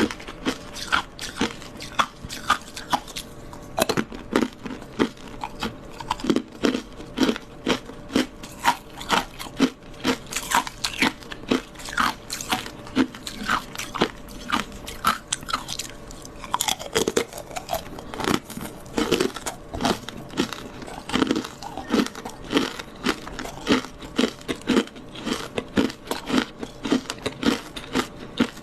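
Frozen matcha ice being bitten and chewed: a steady, dense stream of crisp crunches and cracks.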